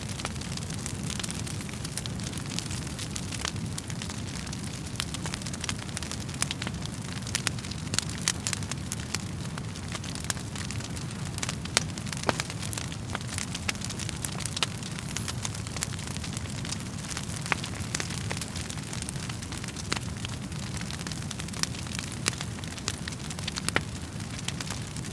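Wood fire burning in a fireplace: a steady low rumble of flames with frequent, irregular sharp crackles and pops of the burning logs.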